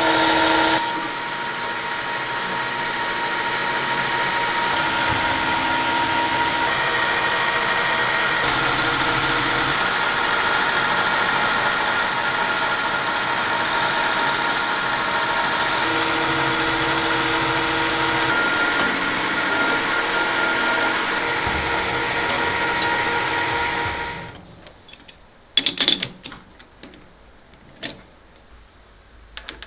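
Metal lathe running and cutting metal: a large drill bit boring into the spinning workpiece, then a turning tool cutting it, a steady machine drone with a thin high whine for a few seconds in the middle. About 24 seconds in the lathe stops, and a few sharp metal clanks follow as the part is handled in the chuck.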